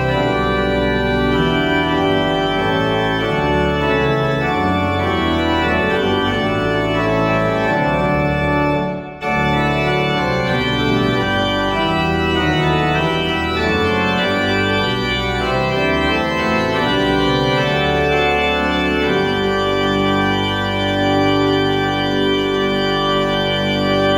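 Pipe organ playing a hymn tune in full held chords over a deep pedal bass, with a brief break between phrases about nine seconds in.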